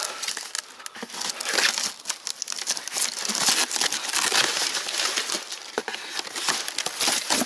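Plastic wrapping and packing tape on a cardboard parcel crinkling and tearing as it is cut open with scissors and a knife: a dense, irregular crackling and rustling.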